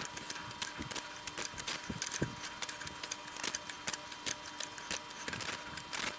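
Open-end wrench clicking and clinking against a small bolt head, lifted off and re-seated a little turn at a time while the bolts holding a lathe's lead screw direction change gearbox are tightened. Many small irregular metal clicks.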